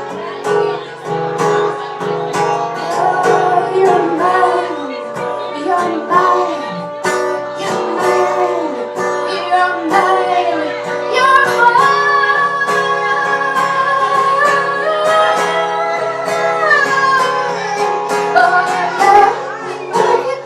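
Music: a woman singing a melody over plucked acoustic guitar, with a long held note about halfway through that slides down at the end.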